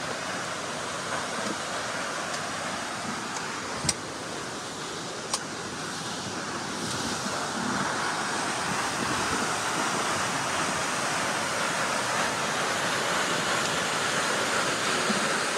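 Steady rush of water from a waterfall, growing louder about halfway through. Two sharp clicks sound about a second and a half apart, roughly four seconds in.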